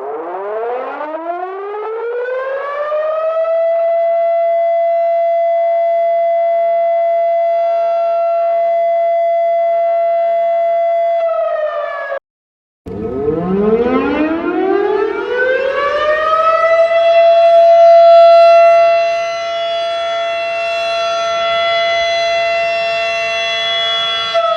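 Federal Sign & Signal Model 7 tornado siren winding up, rising in pitch over a few seconds to a steady wail, and holding it. The recording cuts off about twelve seconds in. After a brief silence a second wind-up rises the same way and holds its steady tone, swelling and easing once partway through.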